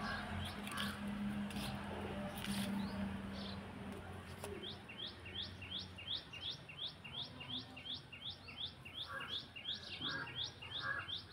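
A small bird singing a rapid, even run of short downward-sweeping chirps, about three notes a second, starting a few seconds in. A low steady hum and a few faint clicks sit underneath in the first few seconds.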